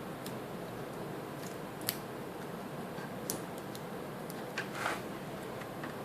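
A few sharp clicks and a short scrape from laptop parts being handled during reassembly, over a steady background hiss.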